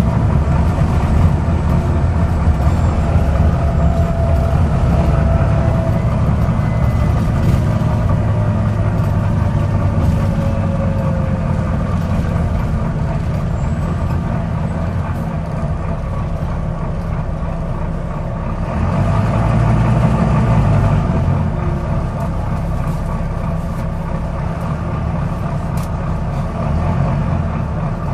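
Volvo B9TL double-decker bus's six-cylinder diesel engine running under way, a steady low drone that swells for a couple of seconds about two-thirds of the way through.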